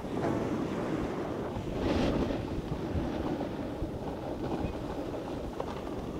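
Snowboards sliding and scraping over packed snow at speed, a steady rumbling hiss with wind buffeting the microphone. There is a louder, sharper scrape about two seconds in.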